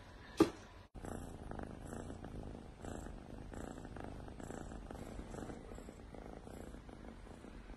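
Kitten purring steadily, swelling and easing about once a second. About half a second in there is a short, sharp, louder sound before the purring begins.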